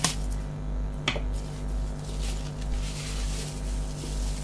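Bubble-wrap packaging rustling and crinkling as a wrapped box is handled and pulled out, with two sharp clicks about a second apart near the start. A steady low hum pulses underneath, about twice a second.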